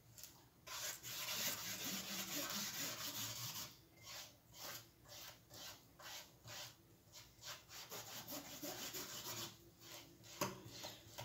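Paintbrush rubbing paint onto a cardboard box: a longer stretch of brushing, then short strokes about two a second.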